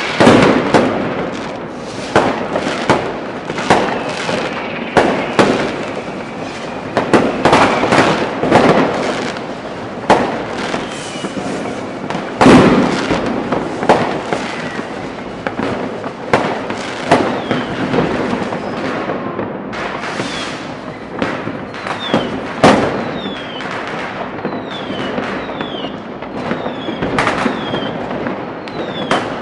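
New Year's Eve fireworks and firecrackers going off all around in a continuous barrage of irregular bangs and crackling, the loudest bang about twelve seconds in. Short falling whistles from rockets join in the second half.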